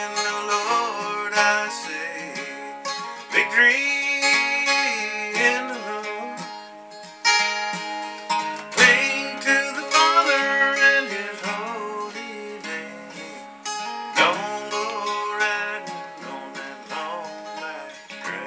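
Acoustic guitar played solo: an instrumental break of picked notes over ringing chords, with a few sliding or bent notes.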